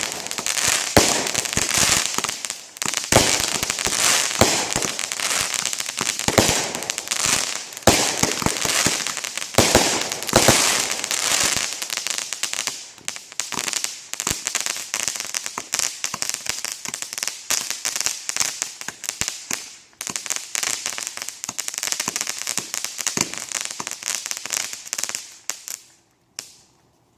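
Consumer fireworks going off: dense, rapid crackling and popping that thins out in the last several seconds and stops suddenly near the end.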